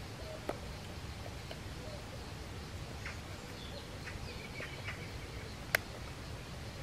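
Knife and fork clicking and scraping on a metal camping plate while cutting food: scattered light clinks, with one sharper clink about three quarters of the way through.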